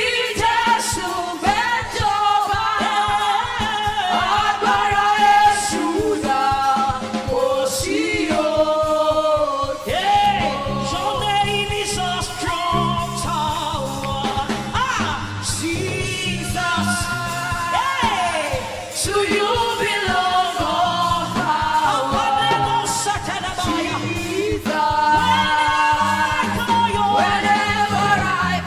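Live gospel song: a woman singing the lead melody over band accompaniment, with a bass line coming in about ten seconds in.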